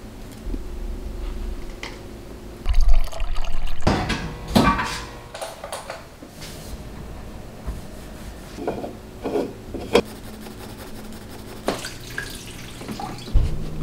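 Water splashing and trickling amid short knocks, clicks and brief hissing sprays from household handling. A low steady hum comes in near the end.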